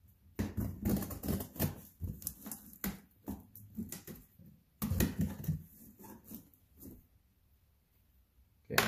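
Hobby knife cutting into a cardboard box and its packing tape: a run of irregular scraping, crackling strokes that stops about seven seconds in. A single sharp click comes near the end.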